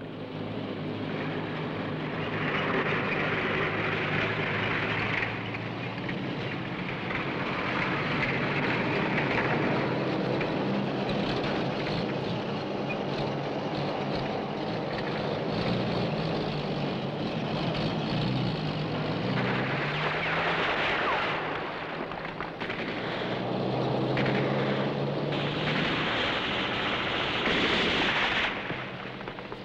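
Military vehicle engines droning steadily, the pitch shifting a few times, with rushes of noise swelling and fading in several stretches of a few seconds each.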